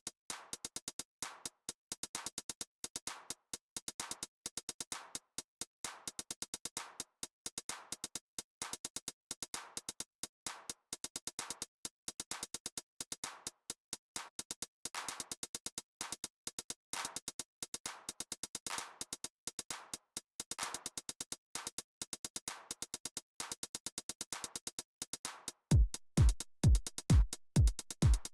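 Roland MC-707 groovebox playing a techno drum-machine pattern: a fast, steady run of sharp hi-hat-like ticks. Near the end a deep kick drum comes in, much louder, with a falling pitch on each hit about twice a second.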